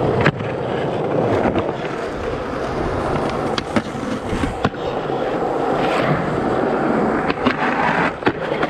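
Skateboard wheels rolling on smooth concrete with a steady gritty rumble, broken several times by sharp clacks of the tail popping and the board landing during flip tricks.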